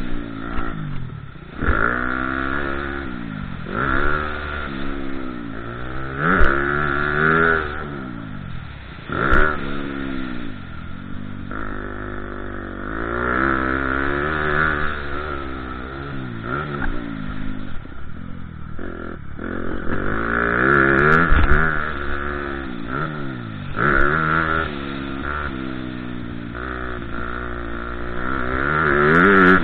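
Motocross bike engine heard from on board, revving up and dropping back over and over as the rider accelerates, shifts and backs off on a dirt track, with a few sharp knocks.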